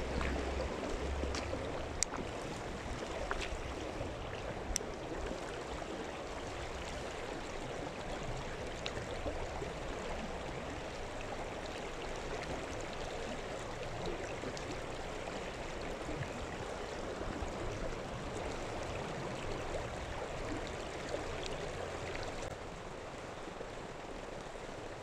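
Steady rush of flowing water, with a few light clicks in the first five seconds and a low rumble that comes and goes.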